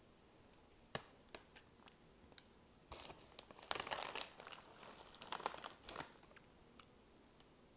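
Foil snack bag of Flamin' Hot Cheetos crinkling as a hand rummages in it for chips, in spurts from about three seconds in until about six seconds in. A couple of sharp clicks come shortly before, about a second in.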